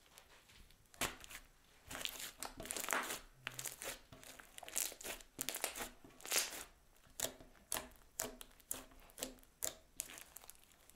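Crunchy slime studded with small white beads being squeezed, stretched and folded by hand, giving a run of irregular crackles and pops that starts about a second in.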